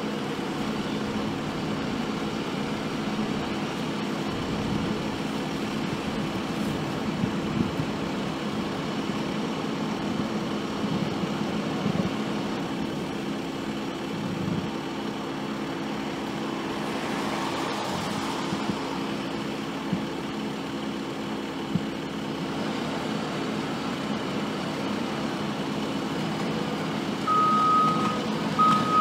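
Heavy machinery's diesel engine running steadily. Near the end a reversing alarm starts beeping at a regular rate.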